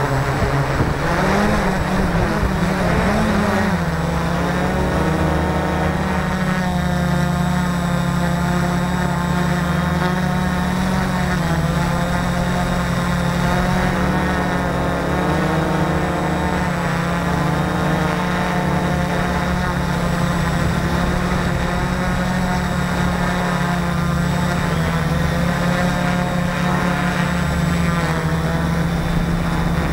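Multicopter's electric motors and propellers running, heard from a camera mounted on the craft itself: a steady buzzing whine whose pitch wavers as the throttle shifts, swinging up and down more in the first few seconds.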